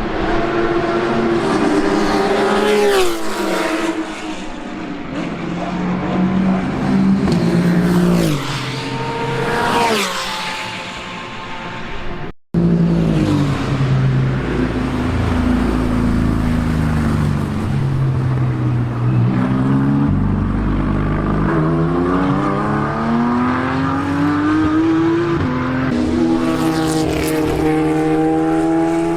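Racing car engines at speed on a circuit. Cars pass with a falling pitch in the first part. After a sudden cut about twelve seconds in, one engine note steps down through the gears under braking, then climbs back up through several upshifts as the car accelerates.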